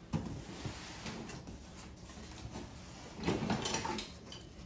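Handling noise of cast-iron decor pieces on a wooden tabletop: a light knock just after the start, then a short spell of rummaging and clatter about three seconds in.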